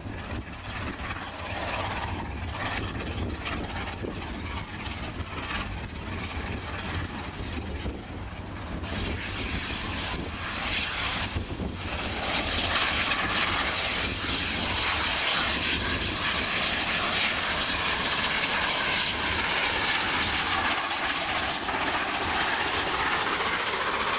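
Three-cylinder Peppercorn A1 Pacific steam locomotive 60163 Tornado working hard up Shap with a railtour, its exhaust getting louder about halfway through as it draws near and passes. Gale-force wind buffets the microphone throughout.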